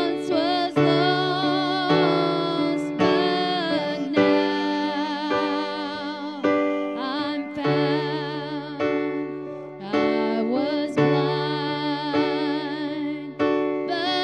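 Music: keyboard playing held chords that change about once a second, with a voice singing over them.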